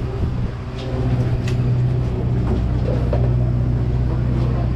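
Steady low engine drone from the fishing boat's machinery, with a few light clicks.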